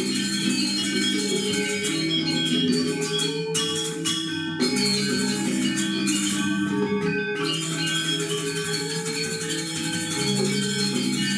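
Balinese gamelan orchestra playing Legong dance music: bronze metallophones ringing in dense interlocking patterns over kendang drums.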